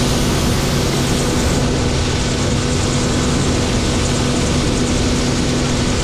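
International 1460 axial-flow combine running at a steady, even hum, its six-cylinder diesel engine, threshing rotor and unload auger all turning, while shelled corn pours from the auger spout into the grain box.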